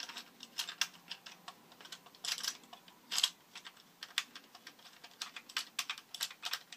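Hard plastic action-camera mount parts and their thumbscrew clicking and scraping as they are handled and fitted together: a string of irregular light clicks, with two longer scrapes about two and three seconds in.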